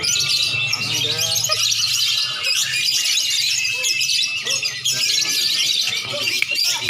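Many caged lovebirds and oriental magpie-robins (kacer) chirping, chattering and trilling at once in a dense, continuous chorus.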